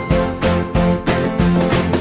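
Background music with a steady beat, about three beats a second, over held melodic notes.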